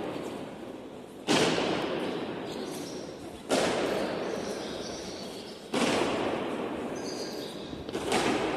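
Slow, evenly spaced stamps of honour-guard boots in ceremonial march step, one heavy strike about every two seconds, each echoing and fading slowly through a large hall.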